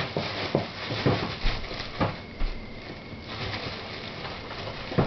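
Irregular light knocks and clatter of objects being handled, with a stronger knock near the end.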